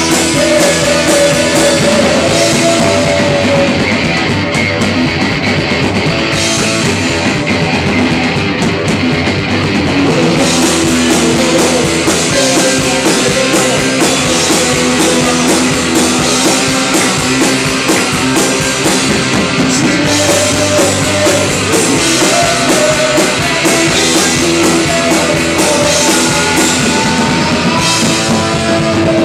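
Live punk rock band playing loudly: drum kit, distorted electric guitar and a man shouting the vocal into a microphone.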